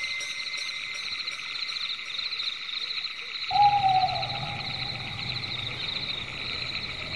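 Forest ambience: a steady, high, pulsing chorus of animal calls. About halfway through, a single drawn-out call starts suddenly and falls slightly in pitch, and a low hum comes in with it.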